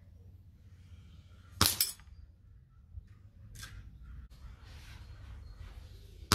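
Spring-piston air rifle shots, an Air Arms TX200 underlever in .177, each report followed within a moment by the sharp clink of the pellet striking a steel knock-down target plate. One shot about one and a half seconds in, a fainter click about two seconds later, and the next shot right at the end.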